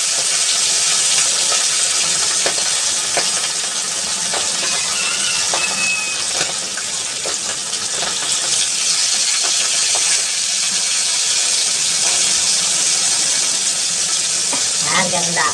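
Fish frying in hot oil in a pan: a steady sizzle with scattered pops and spatters.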